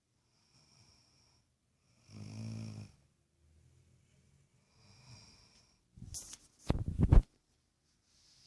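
Snoring in slow breaths, one every couple of seconds: a low buzzing snore about two seconds in, then a louder rattling snore near the end.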